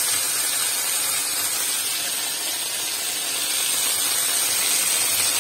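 Marinated chicken-breast skewers with onion and tomato frying in hot oil in a frying pan: a steady sizzle.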